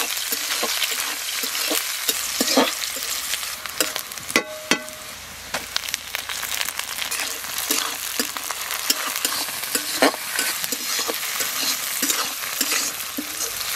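Sliced onions and green chillies sizzling in hot oil in a metal kadai, with a metal spatula scraping and clicking against the pan as they are stirred. There is one brief ringing tone a little over four seconds in.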